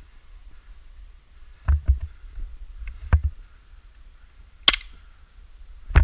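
Airsoft pistols firing: a handful of sharp pops spread over a few seconds, with a sharper, brighter crack about three-quarters of the way through.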